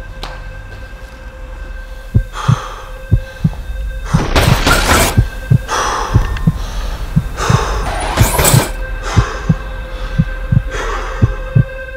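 Heartbeat sound effect over a steady low hum: paired deep thumps about once a second, beginning about two seconds in. Heavy breaths swell in and out several times over the beats.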